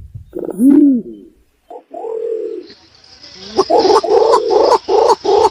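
Green imperial pigeon calling: a deep, arched coo that rises and falls, a short held low note, then a fast run of rolling pulsed notes at about four or five a second.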